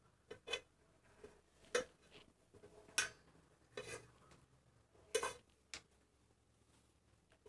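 A knife cutting rolled logs of soft potato-and-poha dough into pieces, its blade knocking on the surface underneath with each cut: about six faint, sharp knocks at uneven intervals.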